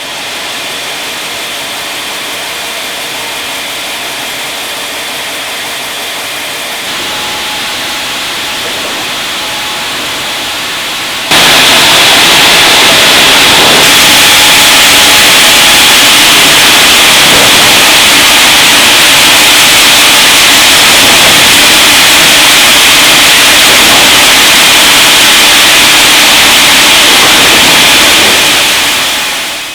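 Sawmill machinery running steadily, a loud even noise that steps up about 7 seconds in and again sharply about 11 seconds in, then fades out near the end.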